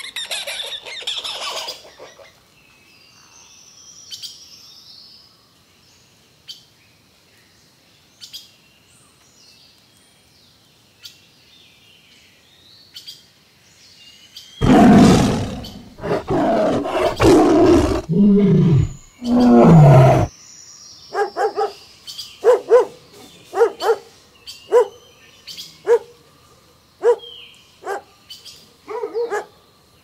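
Faint bird chirping, then a tiger snarling and roaring in several harsh bursts with falling pitch for about six seconds midway, the loudest part. After it, a dog barks in a run of short barks about once a second.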